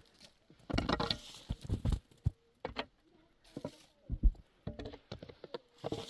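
Irregular knocks, thumps and rustling, with the loudest thump about four seconds in.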